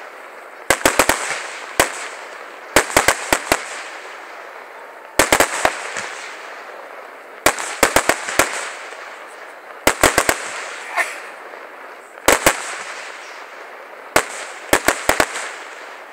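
Fireworks going off in repeated volleys of two to five sharp bangs, roughly every two to two and a half seconds, each volley trailed by a hiss that fades away.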